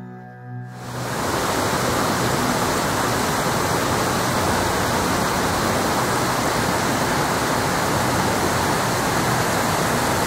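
Waterfall falling onto rocks: a loud, steady rush of water that fades in about a second in, with soft music underneath.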